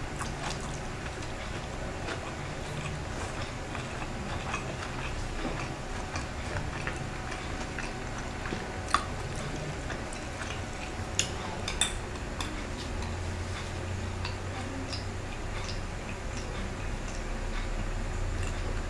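A person chewing close to the microphone, with many small mouth clicks and a few sharper clicks around the middle, over a steady low hum.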